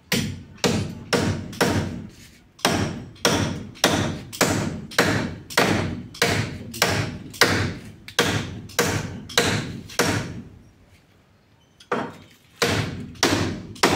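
Rhythmic hammering: sharp blows about two a second, each ringing out briefly, with a pause of a second or so near the end before the blows resume.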